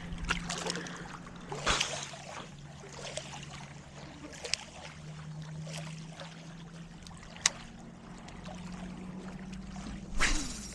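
Lake waves splashing and lapping against shoreline rocks, with a steady low hum underneath. Louder splashes come about two seconds in and near the end, and there are two sharp clicks in between.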